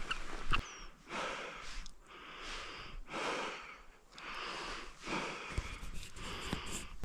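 A person breathing heavily and close to the microphone, about one noisy breath a second, as if out of breath while moving on foot. A brief high chirp sounds near the start.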